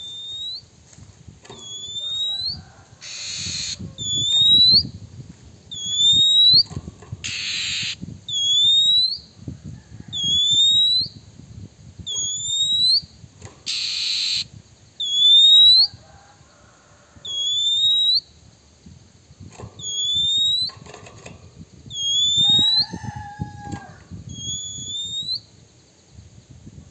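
Male oriental magpie-robin (kacer) calling: a short rising whistle repeated over and over, roughly every second and a half, with three brief harsh rasping notes among them. This is the male's lure call, used to provoke rival magpie-robins.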